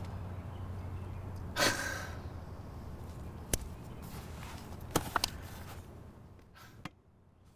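A man lets out a heavy sigh about two seconds in, then a few sharp clicks as he unfastens the chin-strap buckle of his bicycle helmet, over a low background hum that drops away near the end.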